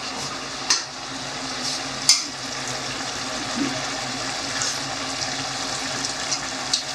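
Food sizzling steadily in a cooking pan, with two sharp clicks of a utensil against the pan, about a second and two seconds in.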